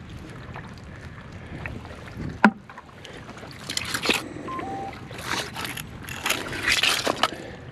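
Footsteps in rubber boots squelching through wet mud and crunching on oyster shells, in uneven crackly bursts through the second half, with one sharp click about two and a half seconds in.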